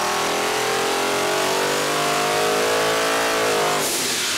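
Centrifugal-supercharged 406 small-block Chevy V8 under full load on an engine dyno, its revs climbing steadily through a 4,000 to 6,500 RPM sweep. Near the end the engine note cuts off and a loud rush of air follows as the boost is vented through the valve.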